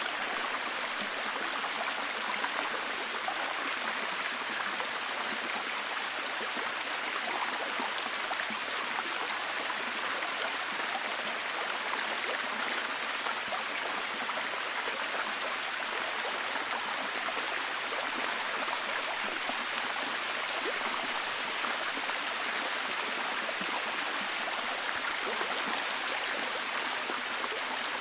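Steady rushing water in a forest ambience, an even hiss flecked with many tiny drip-like ticks.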